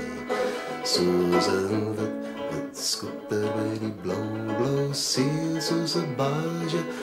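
A man singing a song, accompanying himself on a banjo with plucked strings under his voice.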